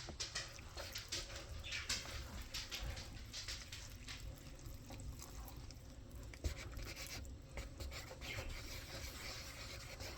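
Faint scattered clicks and light rustling of handling, over a low steady room hum.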